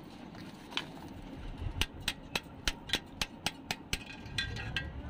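Sharp metal clicks, about four a second for two seconds, then a few short ringing metallic chirps, from a hand tool prising out the clutch release bearing's locking clips on a Tata 407 truck.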